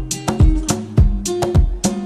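Background music: plucked guitar over a steady beat of about three strikes a second.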